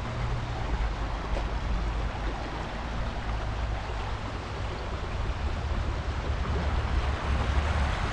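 Waterfall water rushing steadily, a continuous hiss with a deep rumble underneath.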